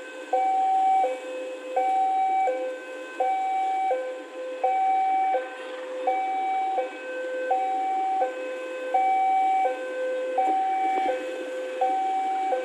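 Railway level-crossing warning alarm sounding as a train approaches: an electronic two-tone chime alternating high and low, repeating steadily at about a second and a half per high-low pair.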